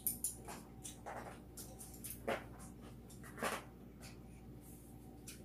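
Eating and tableware sounds: a few short clicks and scrapes of chopsticks against bowls and a plate, faint over the room's steady hum.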